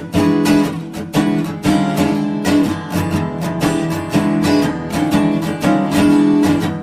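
Background music: acoustic guitar strumming and picking in a steady rhythm.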